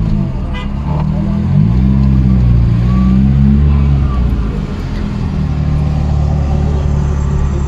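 Car engine heard from inside the cabin in slow traffic: the engine note rises about two seconds in as the car pulls forward, drops back around four seconds in, then runs steady.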